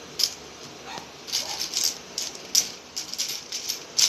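Light, irregular clinking and rattling of cookware, a utensil knocking against a pot and its contents, a few sharp clicks a second with brief pauses between.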